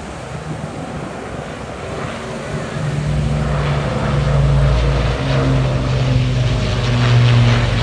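Avro Lancaster bomber's four Rolls-Royce Merlin V12 piston engines droning as it passes low overhead, a steady low engine note that comes in about three seconds in and grows louder, over surf and wind.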